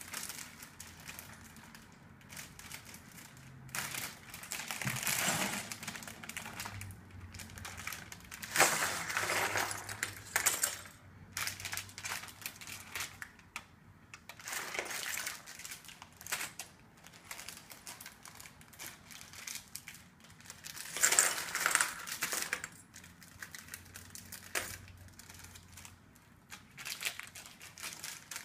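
Plastic Lego parts bags crinkling and small plastic Lego bricks clattering as they are handled, in irregular bursts with quiet gaps, the loudest about a third of the way in and again about three quarters through.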